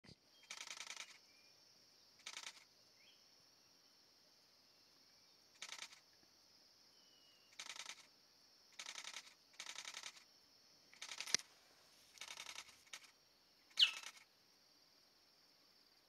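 Steady high insect drone of the forest, broken by about ten short rasping bursts at uneven intervals. Near the end comes a louder, quickly falling whistled note.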